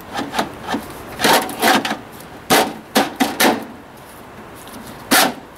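A series of short clunks and clicks from a stiff metal latch on a John Deere 110 backhoe loader being worked by hand, in small irregular groups, the loudest about five seconds in.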